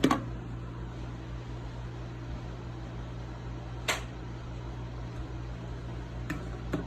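Steady hum of a room fan or air-conditioning unit, with a few short sharp clicks of handling.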